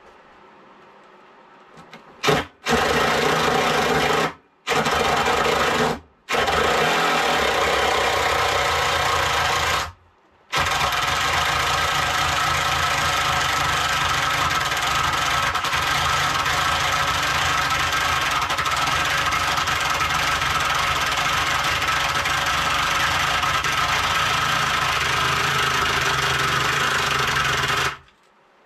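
Cordless driver sinking long 90 mm wood screws into thick worktop without pilot holes: a few short runs, then one long steady run of about 17 seconds that stops near the end. The battery doesn't sound too healthy.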